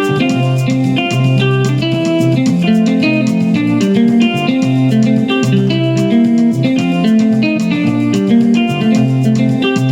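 Yamaha PSR keyboard played with a split voice for Ghanaian church praise: a bass guitar sound held in the left hand under a plucked guitar sound in the right, in a steady rhythm.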